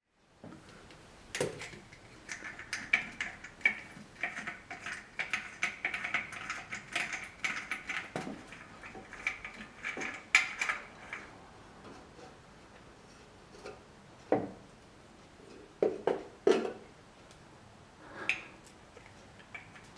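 Light metal clinking and scraping as the air filter cover and air filter are taken off a Morris Minor engine: a busy run of small clinks for about ten seconds, then a few separate knocks.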